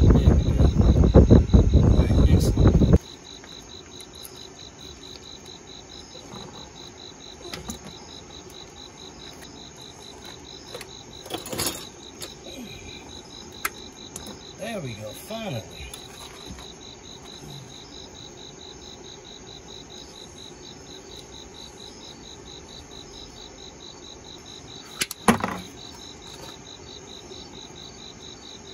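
Crickets chirping steadily in a fast, even pulse, with a few faint clicks and knocks of tool work on the oil filter housing. A loud rough noise fills the first three seconds and cuts off abruptly.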